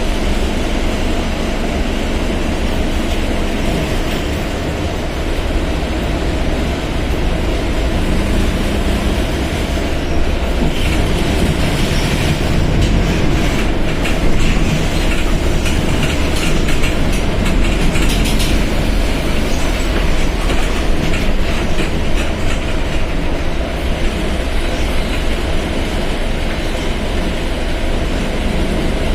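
Mercedes-Benz OF1721 BlueTec 5 bus's diesel engine running with a steady low drone, with a patter of clicks and rattles through the middle stretch.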